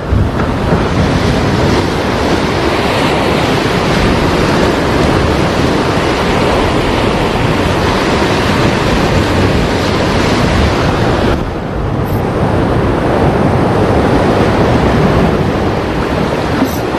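Heavy surf: big waves breaking and washing against the shore in a steady loud rush, easing briefly about eleven seconds in.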